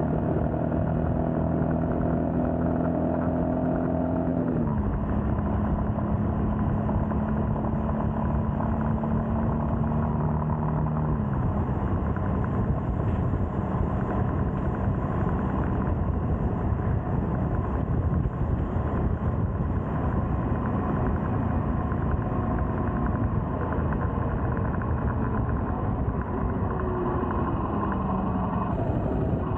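Royal Enfield Scram 411's single-cylinder engine running on the move, its pitch dropping twice, about four and eleven seconds in, under a steady rush of wind and road noise.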